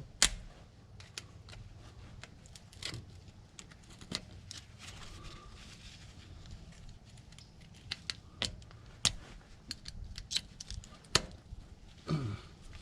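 Irregular small metal clicks and scrapes as steel picks work at a snap ring inside a Ford Bronco automatic locking hub, trying to pry it out of its groove.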